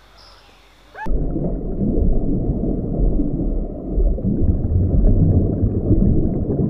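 Underwater ambience: a loud, low, muffled rush of moving water with no high sounds in it, starting abruptly about a second in. Before it there is a faint bird chirp.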